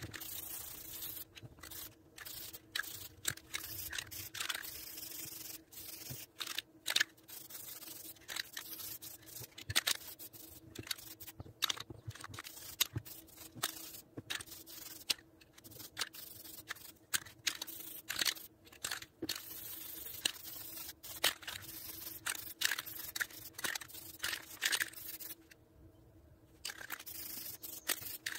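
Aerosol spray paint can hissing in many short bursts with brief pauses between them.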